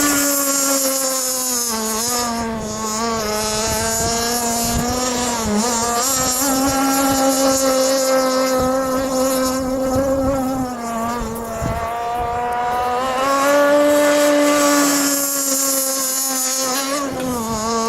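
Small high-revving gas engine of a radio-controlled model boat running on the water, its high buzzing note steady but dipping briefly in pitch several times as the throttle eases off and picks up again.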